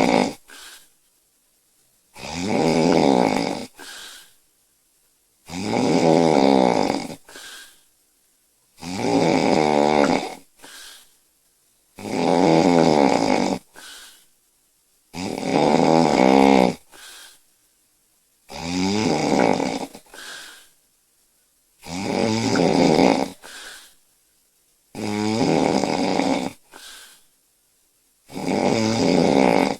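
A young woman snoring in her sleep, with a long, loud, buzzing snore about every three seconds, each followed by a short, quieter breath sound.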